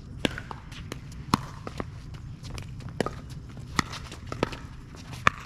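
A pickleball rally: sharp pops of paddles striking the plastic ball about once a second, with fainter ticks and shoe steps between the hits.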